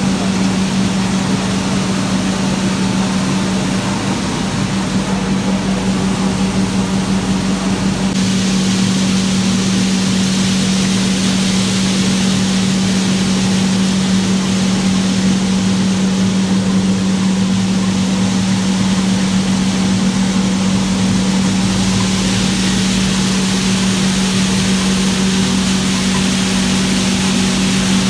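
Puffed-rice (muri) roasting machine with a rotating drum running, giving a steady loud hum under a rushing hiss. The hiss grows brighter about eight seconds in.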